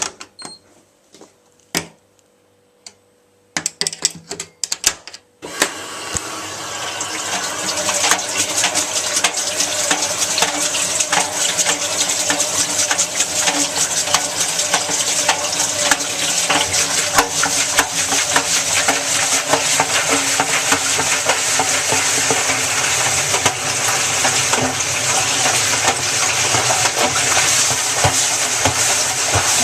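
Zanussi washing machine starting its rinse: a few clicks and knocks, then about five seconds in water begins rushing steadily into the drum and keeps running.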